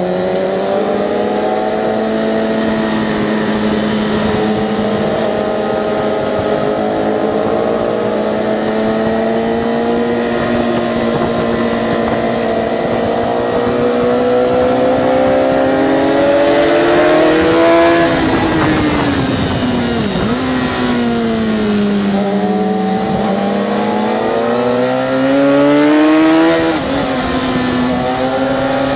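Sport motorcycle engine at track speed, heard from on board over heavy wind rush. Its pitch climbs slowly and steadily for the first half, drops sharply under braking and downshifts about two-thirds of the way through, climbs again, then falls abruptly with a quick gear change near the end before rising once more.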